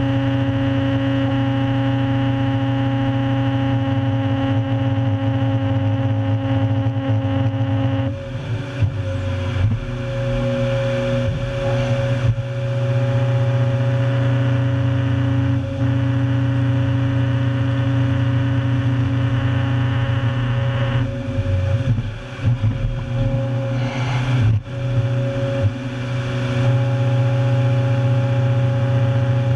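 The 400-plus horsepower engine of a tracked stump-destroyer machine runs steadily under load while its rotary head planes stumps. The engine note shifts about 8 seconds in and again between about 21 and 26 seconds, with dips in loudness and scattered knocks as the head bites into wood and roots.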